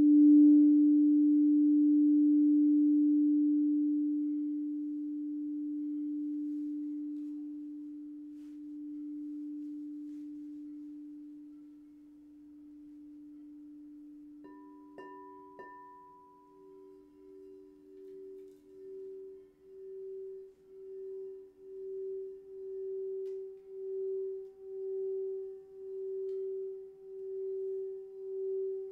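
Quartz crystal singing bowls: one bowl's low, pure tone rings on and fades away. About halfway through, a second, slightly higher bowl is struck and then played around its rim with the wand, its sustained tone swelling and pulsing about once a second.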